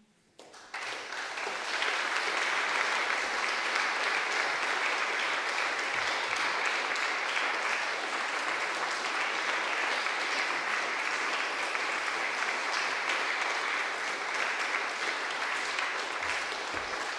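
Audience applauding: the clapping starts about half a second in, builds quickly and then holds steady.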